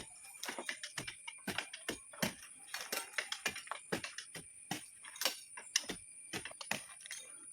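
Irregular series of sharp clicks and taps, two to four a second.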